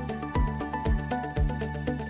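Electronic background music with a steady beat, a low kick drum about twice a second under held synth notes.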